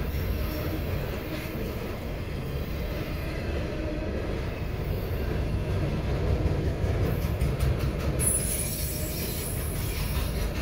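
Freight train of autorack cars rolling past at speed: a steady rumble of steel wheels on rail. A high wheel squeal comes in about eight seconds in.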